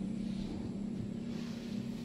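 A steady low motor hum holding one even pitch, under a light hiss.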